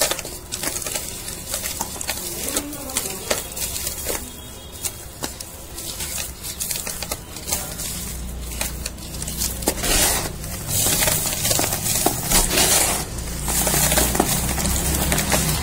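Fingers crumbling and crushing dry, dusty gray cardboard: a continuous run of small crunches and crackles that gets denser and louder from about ten seconds in.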